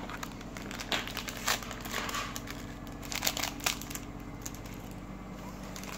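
Clear plastic bag crinkling in short, irregular crackles as it is handled.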